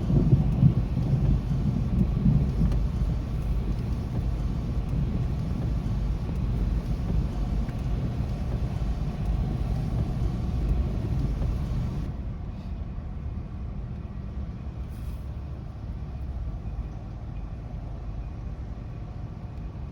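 Rolling thunder: a deep rumble that is loudest in the first couple of seconds and slowly dies away over about ten seconds.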